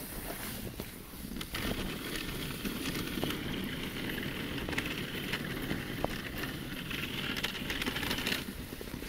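Dogsled runners sliding over packed snow: a steady rumble with a hissing scrape that comes in about a second and a half in and cuts off near the end.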